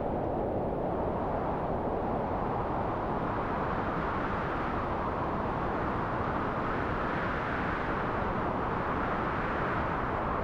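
Wind blowing steadily, a low rushing noise that swells slightly about halfway through and eases again.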